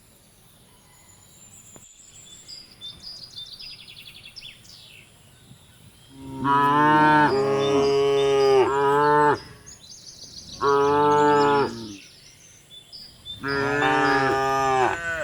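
Cattle mooing: three long, loud moos, the first about six seconds in and the others following a couple of seconds apart. Faint high chirps come before them.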